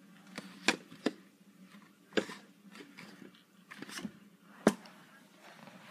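Irregular sharp taps and clicks of handling noise close to the microphone, about seven in all, the loudest two a couple of seconds in and near the end.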